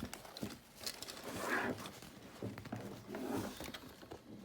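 Handling noise from a plastic walkie-talkie mount: scattered clicks and short rubbing and scraping sounds as the radio is secured with its bungee cord and hook, the loudest scrape about a second and a half in.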